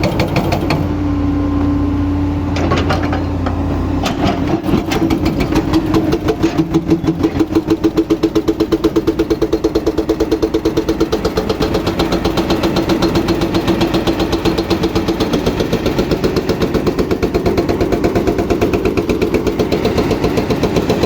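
Excavator's diesel engine running, then about four to five seconds in its hydraulic breaker starts hammering in rapid, evenly spaced blows that continue steadily over the engine.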